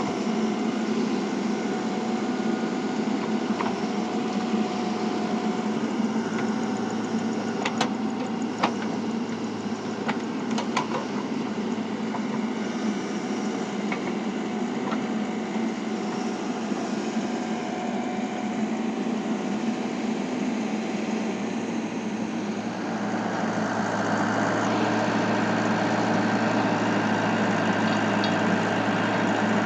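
Radio-controlled model excavator running with a steady mechanical hum, a few sharp clicks, and a step up in loudness about three-quarters of the way through as it works harder.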